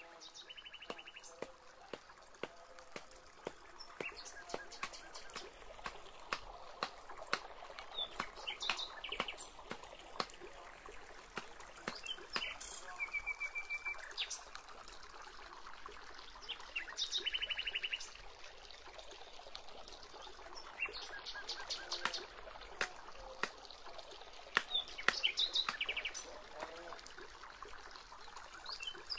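Wild birds calling in short, rapid trills repeated every few seconds, with scattered sharp clicks and knocks as bamboo stakes are handled and set into the forest floor.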